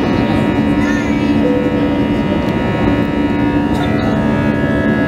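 Jet airliner's underwing turbofan engines at takeoff thrust, heard from inside the cabin during the climb just after liftoff: a loud, steady rush with several steady droning tones over it.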